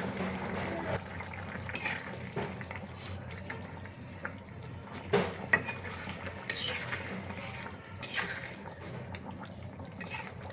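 Kitchen utensil sounds: a spoon stirring and scraping in a cooking pot, with a few scattered sharp clinks and knocks of metal on the pot.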